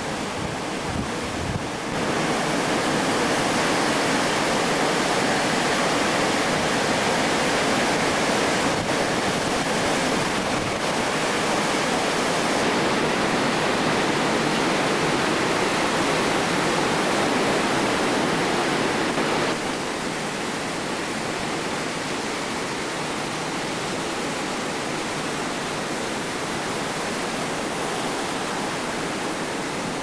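Steady rush of ocean surf with wind on the microphone. It grows louder about two seconds in and drops somewhat about two-thirds of the way through.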